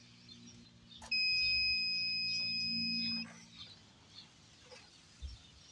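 Klein Tools digital multimeter's continuity beeper sounding one steady high-pitched beep about two seconds long. It starts about a second in, just after a click, as the test leads close the circuit through a fuse: the fuse has continuity and is good.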